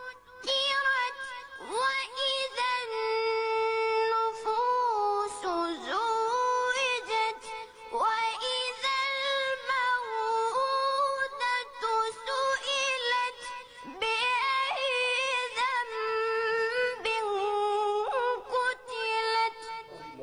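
A high, clear solo voice reciting the Quran melodically (tajwid), holding long notes with ornamented bends and turns and pausing briefly for breath between phrases.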